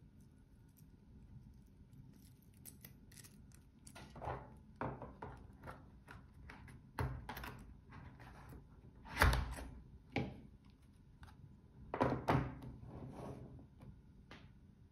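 A watch with a stainless-steel link bracelet being handled and laid into its presentation box, and the box being closed: a series of light clicks, knocks and thuds, the loudest about nine seconds in.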